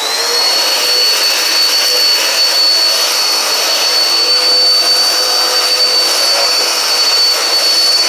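Dirt Devil upright vacuum cleaner switched on, its motor winding up to speed at the very start and then running with a steady high whine over a rushing hiss as it is pushed over a pile of coffee grounds and sand on a concrete floor.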